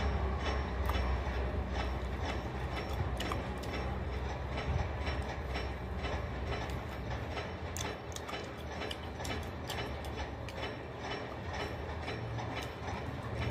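Close-up chewing and crunching of a hard, crunchy piece of food, a quick irregular run of sharp cracks and clicks from the mouth, over a steady low rumble.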